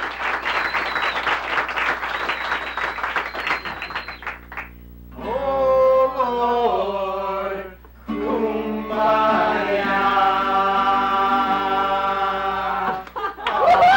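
Audience applause dies away over the first few seconds. Then a voice sings long, drawn-out notes in two phrases, stepping from pitch to pitch.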